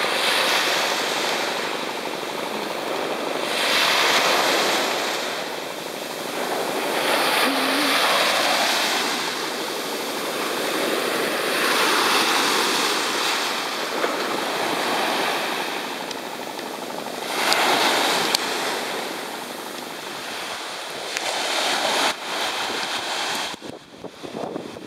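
Small waves washing up onto a sandy beach and draining back, a rush that swells every four to five seconds. It drops away abruptly near the end.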